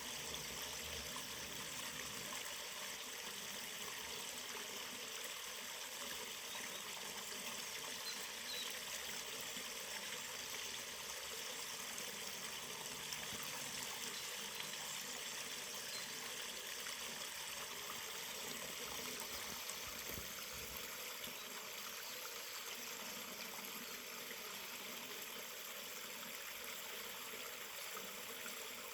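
Forest river flowing: a steady, even rush of running water.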